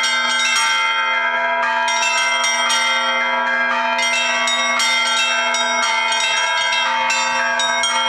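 A set of Russian Orthodox church bells, newly cast in Ilya Drozdikhin's Moscow workshop, rung by hand from clapper ropes in a continuous fast peal. The smaller bells are struck several times a second and ring on over a steady low bell tone.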